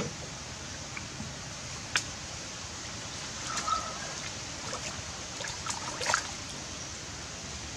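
A steady water-like hiss of a creek with a few light clicks and small splashy ticks. There is a sharp click about two seconds in, and a cluster of them between three and a half and six seconds in.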